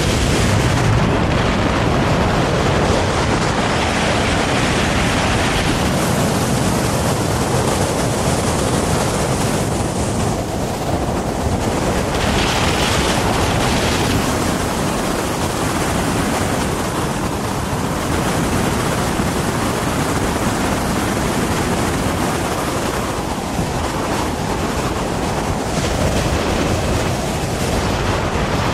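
Steady, loud rush of wind across the microphone of a camera flying on a paraglider, easing slightly about ten seconds in and again in the last few seconds.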